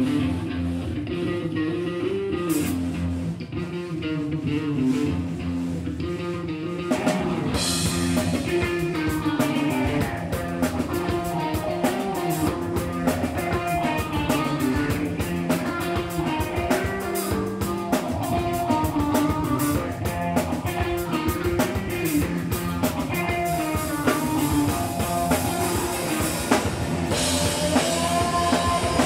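Live rock band: electric guitar and bass play a riff, and the drum kit comes in about seven seconds in, then keeps a driving beat under the guitars.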